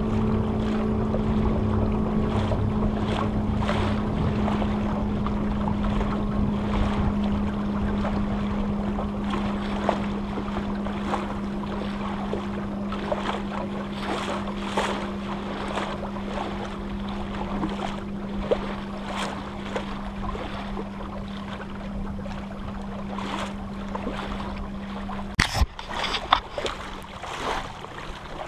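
Water slapping and splashing against a small sailboat's hull, with wind on the microphone and a steady low hum that cuts off near the end with a sharp knock.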